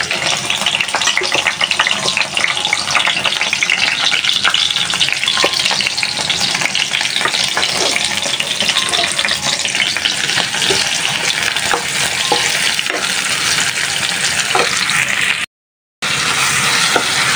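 Sliced onions frying in hot oil in a frying pan, sizzling and crackling steadily as they are stirred with a metal spatula. The sound cuts out for a moment near the end.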